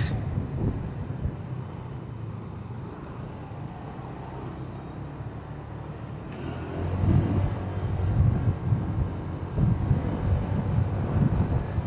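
Motorcycle riding through street traffic: engine and wind noise on the bike-mounted mic, quieter at first, then louder and rougher from a little past halfway.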